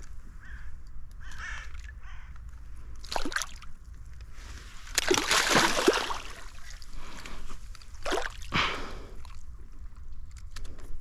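Water splashing and sloshing in irregular bursts, the biggest about five to six seconds in, with a crow cawing a few times near the start.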